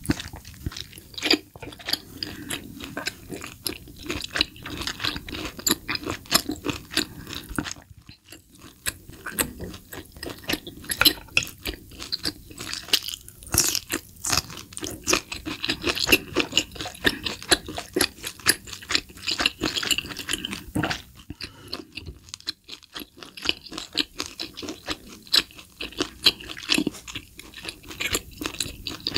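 Close-miked ASMR chewing and biting of grilled tomahawk steak and grilled asparagus: a steady run of crunching, crackling mouth sounds, easing off briefly twice.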